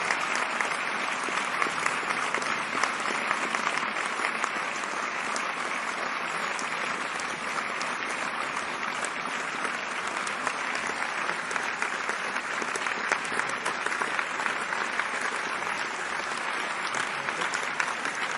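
Audience applause: many people clapping steadily, a dense, even patter of hand claps.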